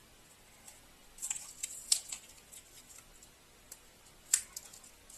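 A small piece of sandpaper crackling and scraping as it is wrapped by hand around a marker pen. There are a few sharp, crisp crackles, bunched together from about one to two seconds in and one more strong one past four seconds.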